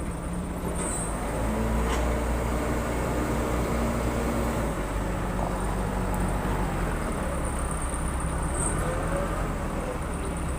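Backhoe loader's diesel engine running under working load; its note rises about a second and a half in and settles back about five seconds in, as the hydraulics are worked.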